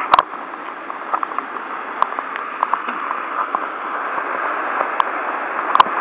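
Rushing white water of a mountain-stream waterfall swollen by typhoon rain, a steady hiss that grows gradually louder, with a few sharp clicks.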